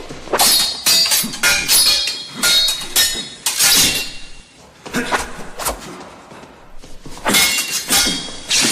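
Swords clashing: a rapid series of sharp metal-on-metal strikes, each ringing briefly, coming in flurries with a short lull about halfway through.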